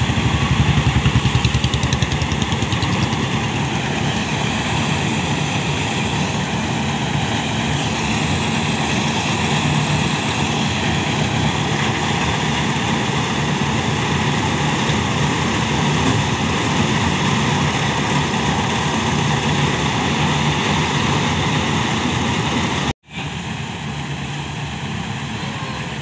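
Malkit 997 combine harvester running steadily while cutting rice, its diesel engine and harvesting machinery making a loud, continuous noise. The sound breaks off for an instant near the end, then carries on a little quieter.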